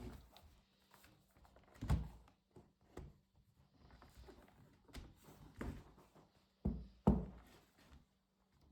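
Clicks, taps and thunks from handling an HP Pavilion 17-f laptop during disassembly, with two louder knocks, one about two seconds in and one near the end.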